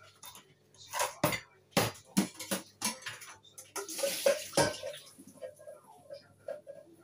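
Kitchen clatter: a string of sharp knocks and clinks from pots and utensils, with a brief rush of water about four seconds in.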